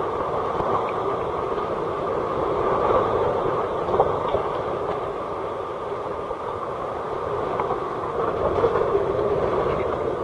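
Sea water sloshing and lapping inside a sea cave, a steady muffled rumble that swells twice, with a sharp click about four seconds in.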